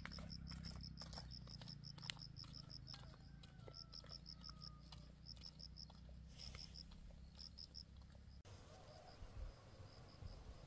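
Insects chirping in a fast, even pulse of short high notes, about five a second, over a low steady hum. The hum cuts off suddenly a little past eight seconds in, and the chirping carries on fainter.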